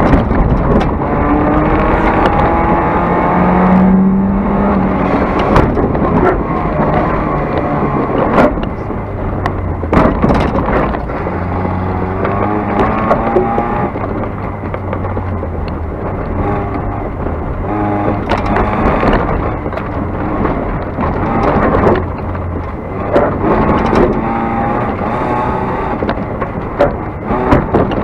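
Race car engine, heard from inside the car, revving hard with its pitch climbing and dropping again and again as it accelerates and shifts gears on a dirt course. Sharp knocks of stones and bumps hitting the car are scattered throughout.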